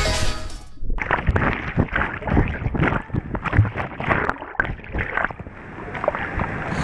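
Water splashing and sloshing in uneven bursts around a GoPro held by a swimmer, sounding muffled, as if heard through the camera's waterproof housing.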